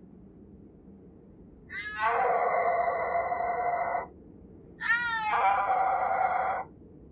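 Snow leopard yowling: two long calls less than a second apart, each opening with a short sweep in pitch and then drawn out into a harsh wail.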